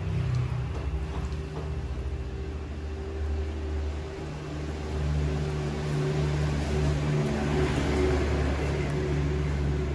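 A steady low mechanical hum, with a rushing noise that swells about eight seconds in.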